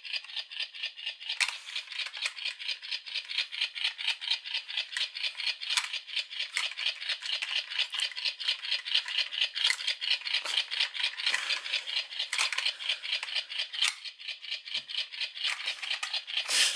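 Rapid, steady rattling of hard plastic parts, about five sharp clicks a second.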